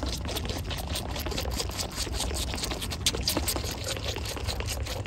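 Bottle-fed baby goats sucking milk from their bottles: rapid, irregular sucking and slurping clicks.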